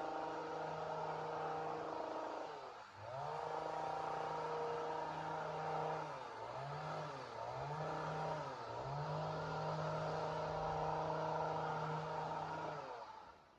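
Two-stroke chainsaw running at high revs, its engine speed dipping and recovering several times about a third of the way in and again in the middle, then dying away just before the end.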